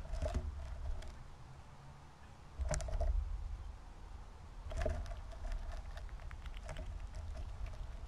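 Fox squirrel foraging in loose mixed birdseed close to the microphone, making scattered small clicks and rattles of seed. These come in short clusters a couple of seconds apart.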